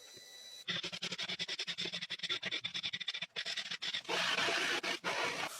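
Rapid scratching strokes on wood, many a second, turning into a steadier scratching rush about four seconds in.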